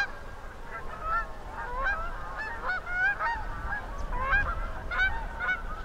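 A large flock of geese and tundra swans calling on a lake: many short, high honks overlapping, several a second, with a low wind rumble underneath.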